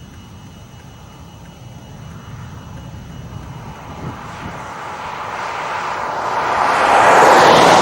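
A vehicle passing close by on the road, its tyre and engine noise swelling steadily for several seconds and peaking near the end as it goes past.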